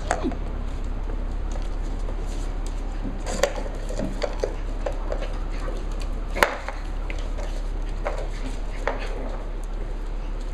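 Cavalier King Charles spaniel puppies playing on a wooden floor: scattered clicks and knocks, one sharper knock about six and a half seconds in, over a steady low hum.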